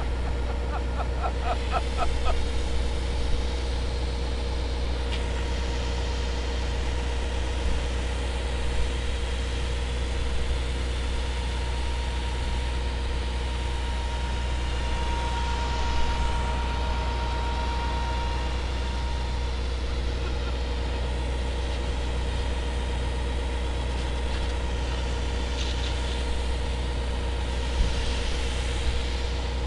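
An engine running steadily with a deep hum, under the hiss of a high-pressure hose jet spraying water.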